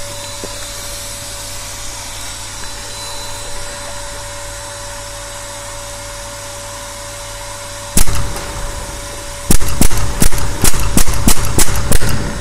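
Edgun Leshiy 2 semi-automatic PCP air rifle in 6.35 mm firing: a single shot about eight seconds in, then a fast string of shots at about three a second, fired as quickly as possible to test whether the regulator keeps up. Before the shots there is only a steady background hum.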